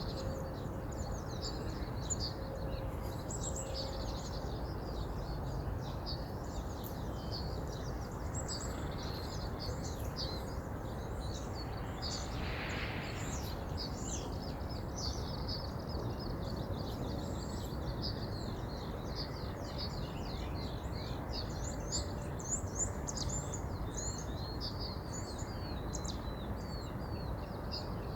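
Steady rush of a flowing river under many small birds chirping and twittering, the birdsong growing busier in the second half.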